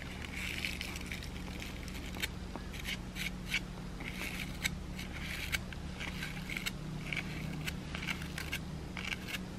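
Short scratchy brushing strokes, repeated about once or twice a second: a spoolie's bristles brushed through a false strip lash, with light clicks of long nails on a plastic lash tray. A steady low hum runs underneath.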